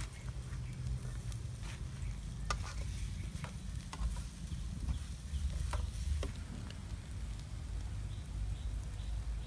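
Minced eel stir-fry sizzling in a metal wok on a portable gas stove, with a handful of sharp clicks from a ladle against the pan and plastic containers, over a low steady rumble.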